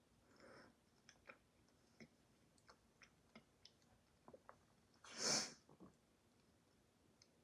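Quiet eating of ice cream: faint scattered clicks of a spoon and soft mouth sounds. About five seconds in, one short, loud hiss lasting about half a second stands out above them.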